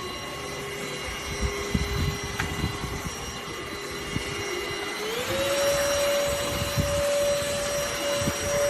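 ENOLUX ST7000 cordless handheld vacuum cleaner running with a steady motor whine that steps up in pitch and gets louder about five seconds in, with scattered low knocks.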